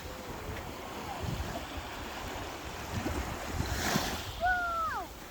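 Sea waves washing on the shore, with wind buffeting the microphone and a wash of surf swelling about four seconds in. Near the end a short pitched call drops sharply in pitch.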